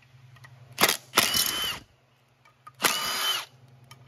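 Cordless power driver spinning in two short bursts, its motor whine rising quickly and holding steady, backing out the bolts of the water pump cover. A sharp click comes just before the first burst.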